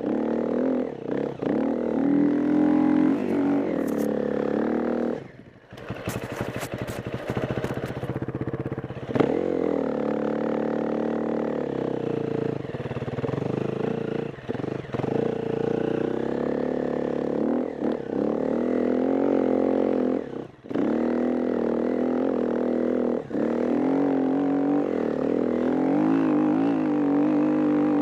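KTM EXC-F 350 enduro motorcycle's single-cylinder four-stroke engine revving up and down under load as the bike ploughs through deep snow, with the throttle closing briefly a few times. About six seconds in there are a couple of seconds of rapid clattering.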